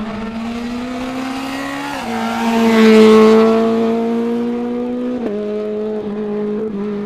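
Rally car at speed on a special stage, its engine note stepping in pitch with gear changes about two seconds in and again about five seconds in. It is loudest as it passes close, about three seconds in.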